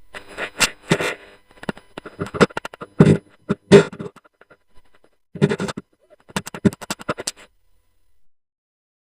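Made-up Deinonychus call effect: rapid rattling, clicking vocal pulses in three bursts, the loudest in the middle, falling silent about a second and a half before the end.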